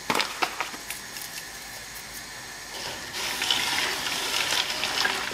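Coconut milk sloshing as a wooden spatula stirs it in a pot, starting about three seconds in. A few light clicks just before that, at the start.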